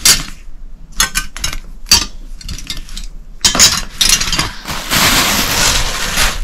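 Cookie cutters clinking and clacking against each other as they are gathered up and stacked by hand, in a string of sharp clicks. Near the end a dense rustling and handling noise takes over.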